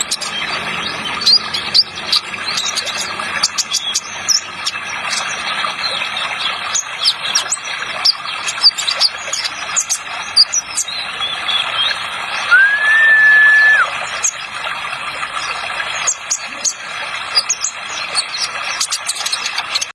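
Kolibri ninja (sunbird) song: a rapid stream of short, sharp high chirps, with one long even whistle about two-thirds of the way through, over a steady background hiss of running-water sound effect.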